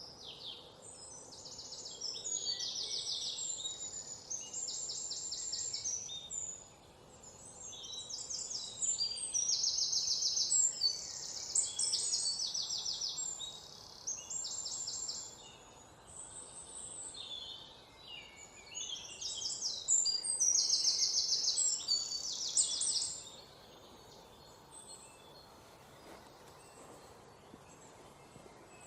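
Songbirds singing in the wild: several overlapping high, rapid trills and chirps, one after another, over a faint steady background hiss. The birdsong drops away for the last few seconds.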